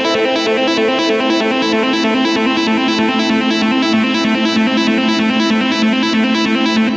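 Instrumental music with a steady pulse, played in place of the match commentary.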